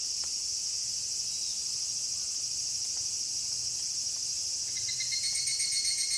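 Crickets chirring steadily in a high-pitched night chorus. A second, pulsing trill joins near the end.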